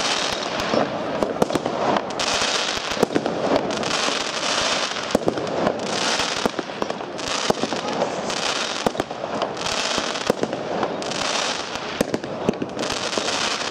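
Dynasty Capetown firework cake firing: a continuous run of sharp shots and bangs, with bursts of hissing crackle overhead about every second.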